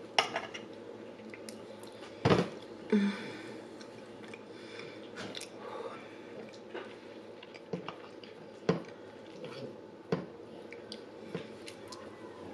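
Close-miked eating: soft, wet chewing and mouth sounds of soft food, broken by scattered sharp clicks of a metal fork against the plate. The loudest click comes about two seconds in.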